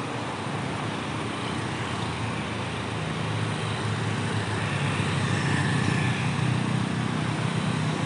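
Road traffic: car and motorbike engines and tyre noise, with a low engine drone that sets in about three seconds in and slowly grows louder as a bus climbs toward the bend.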